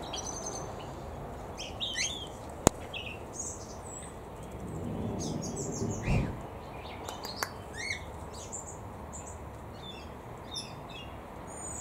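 Assorted small aviary birds chirping and calling in short, scattered high notes. A single sharp click comes a little under three seconds in, and a low thump about six seconds in.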